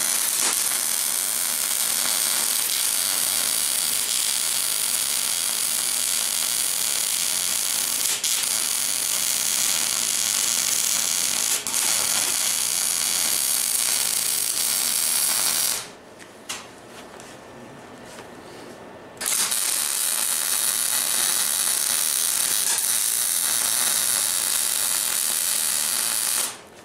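MIG welder arc crackling steadily as it lays fill weld on steel, in two long runs with a pause of about three seconds some sixteen seconds in.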